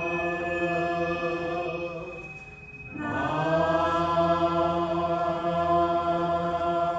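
Jodo Shinshu Buddhist sutra chanting: voices hold a long steady tone, fade out for a breath a little past two seconds in, then come back in sliding up into pitch and hold again.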